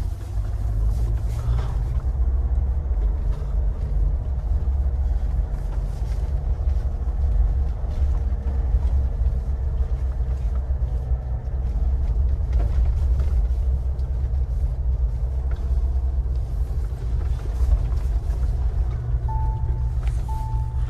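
Mahindra Thar 4x4 heard from inside the cabin while driving on a snowy mountain road: a steady, deep rumble of engine and tyres. A short electronic beep starts repeating about once a second near the end.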